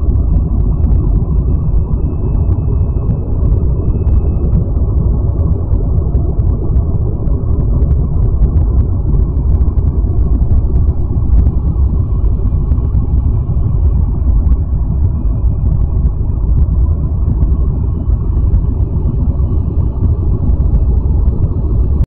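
Deep, steady rumbling drone, an ambient 'exoplanet sound' track for Kepler-666b, with faint thin high tones above it; it cuts off suddenly at the end.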